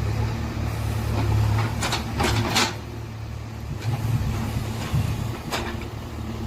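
JCB backhoe loader's diesel engine running with a steady low drone that eases about two seconds in and picks up again partway through, with a few short sharp noises around two seconds in and once more near the end.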